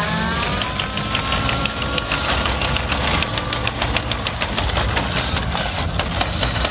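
Side-by-side utility vehicle's engine pulling a helicopter on a wheeled ground dolly, its pitch rising in the first second as it pulls away, then running steadily with a fast, even ticking.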